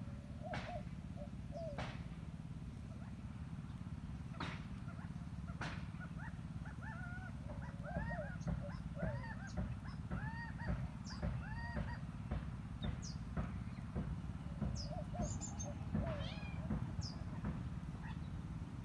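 An animal's short, arching calls, several a second in a quick run through the middle, with a few sharp clicks, over a steady low rumble.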